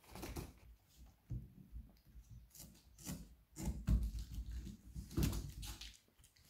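A kitten scrabbling about inside a cardboard box: irregular light knocks, scrapes and rubs on the cardboard, with a few louder dull thumps about halfway through.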